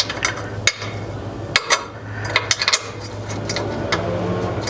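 Hand tools working on bolts under a car: sharp metallic clicks and clinks, several in a quick cluster around the middle, over a steady low hum.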